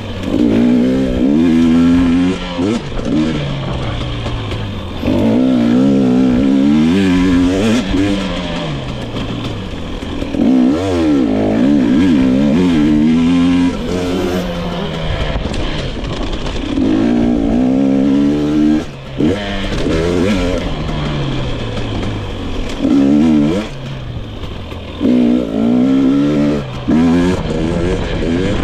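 2022 GasGas EX 250 fuel-injected two-stroke dirt bike engine being ridden, revving up and down over and over, its pitch climbing and falling with each burst of throttle.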